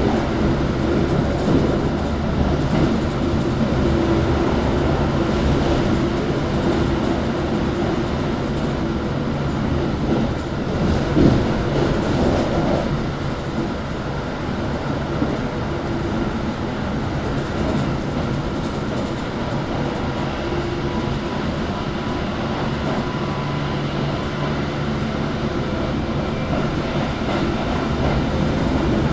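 Keikyu New 1000 series electric train with Siemens GTO inverters, heard from inside the carriage while running at speed: steady wheel-on-rail rumble with a level hum. There is one louder knock about eleven seconds in.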